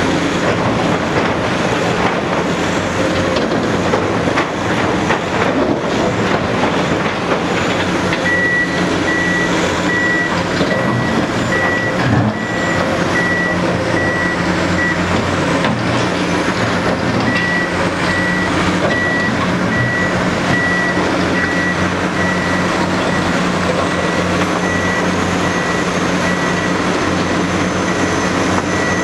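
Diesel excavators and other heavy machinery working in a rock-and-dirt excavation pit, engines running steadily. From about eight seconds in a reversing alarm beeps repeatedly, breaks off briefly near the middle, then resumes.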